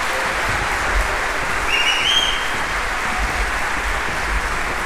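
Concert-hall audience applauding steadily, with a short high tone rising briefly about two seconds in.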